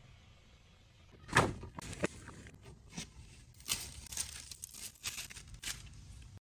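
Unboxing handling sounds: a rigid cardboard gift box is slid out of a paper shopping bag with a loud paper rustle about a second and a half in. Several sharp taps and scrapes of fingers and the box follow as it is set down and handled.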